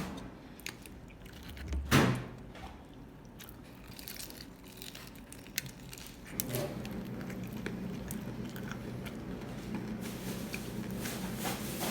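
Eating sounds: chewing and scattered sharp clicks of utensils, with a louder knock about two seconds in. A steady low hum comes on about six and a half seconds in and keeps going.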